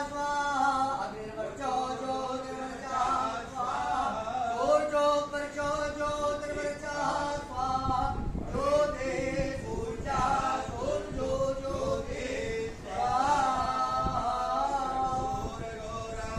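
Men singing a chant together in long held notes that step and glide between pitches, phrase after phrase, with a short break about twelve and a half seconds in.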